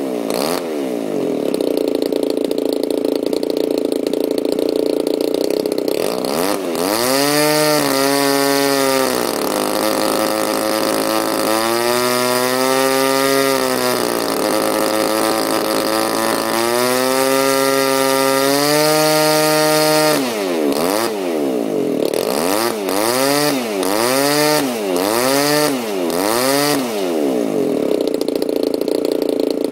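DLE 20 single-cylinder two-stroke gasoline model-airplane engine running with a 16x6 propeller, first steadily at low speed, then throttled up and held at high speed several times. Later it is blipped up and down about five times in quick succession before settling back to steady low-speed running near the end.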